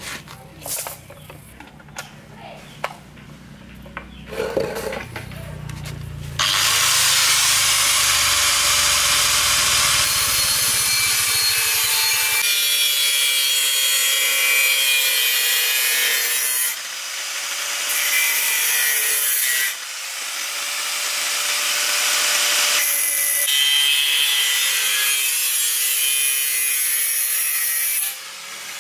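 Handheld electric angle grinder with a cutting disc cutting through a square steel tube. Light handling clicks come first, then about six seconds in the loud hiss of the disc biting the metal starts. It eases off briefly twice and stops just before the end.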